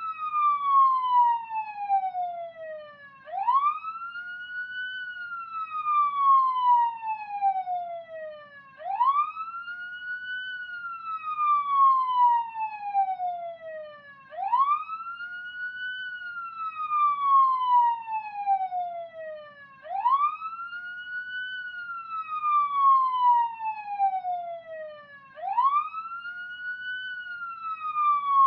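Police siren in wail mode: a tone sweeps quickly up, then glides slowly down, repeating about every five and a half seconds.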